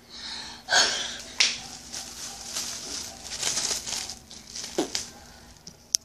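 Thin clear plastic glove crinkling and rustling as it is worked onto a hand, in a run of irregular rustles with a few sharp clicks.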